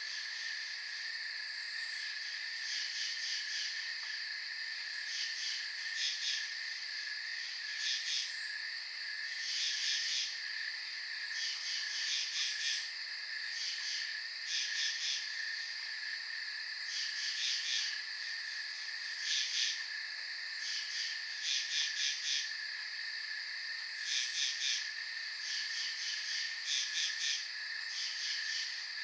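Late-summer night insect chorus: a steady high cricket trill, with louder bursts of rapid pulsing chirps every two seconds or so.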